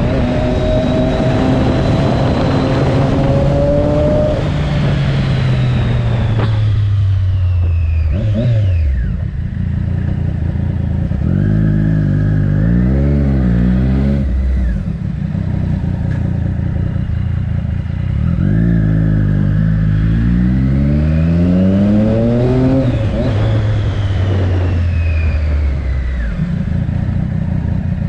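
Triumph Daytona 675's three-cylinder engine through an Arrow exhaust, ridden on the road. Over the first several seconds the revs fall away as the bike slows, with wind rushing past. Then the revs climb and drop again twice as it pulls away, the second pull longer.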